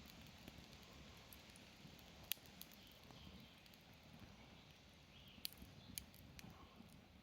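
Wood campfire crackling faintly: a few sharp, isolated pops, the loudest about two seconds in and a small cluster near six seconds, over a soft low background hiss.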